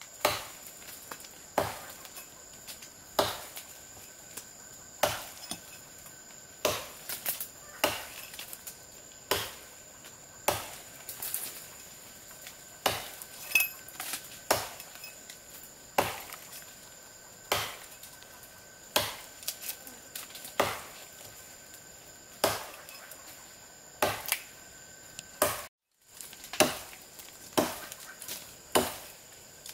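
Wood being chopped with a blade: a sharp strike about every one and a half seconds, with a few lighter taps between.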